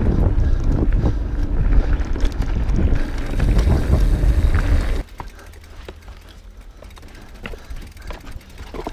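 Wind buffeting the camera microphone and the rumble of an Evil mountain bike's tyres rolling fast over dirt singletrack. About five seconds in the sound drops suddenly to a much quieter stretch with scattered light clicks and knocks.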